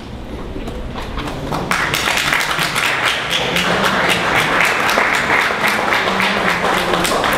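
Audience applauding: scattered claps at first, swelling into full, steady applause about two seconds in.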